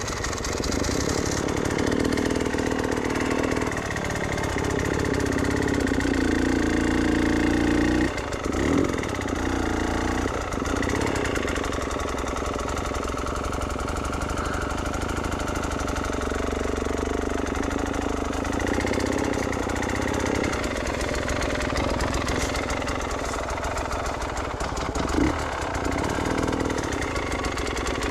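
Enduro dirt bike engine running, its revs rising and falling as it rides the trail. Two short knocks come through, about nine seconds in and again near the end.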